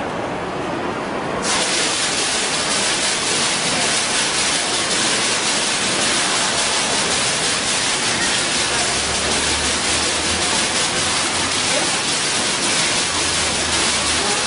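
Digital water-curtain fountain: a row of valves drops water in sheets and patterns that splash steadily into the basin below. The hiss of falling water comes in abruptly about a second and a half in, as the curtain starts a new pattern.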